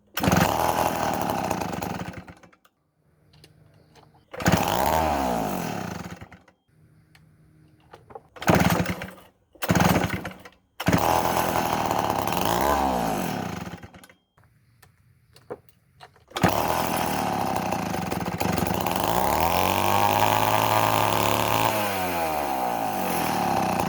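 1962 Wright C-50 two-stroke chainsaw catching and running in short bursts with the throttle rising and falling, dying out between bursts several times, then running on continuously from about two-thirds of the way in. It won't stay running when the throttle is let off, a sign the carburetor needs adjusting.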